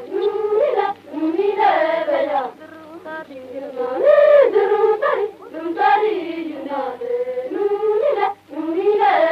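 Maria Gond folk song in Gondi, sung by unaccompanied voices in phrases broken by short pauses. It is an old field recording, dull with no high treble, over a faint low hum.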